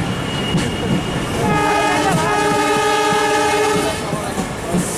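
Diesel locomotive's horn sounds one steady blast of about two seconds, starting about a second and a half in, over the running noise and clickety-clack of the train's wheels on the rails.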